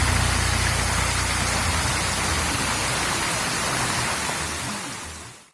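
Waterfall's falling water: a steady, even rush, with a low hum beneath it that dies away about halfway; the whole sound fades out near the end.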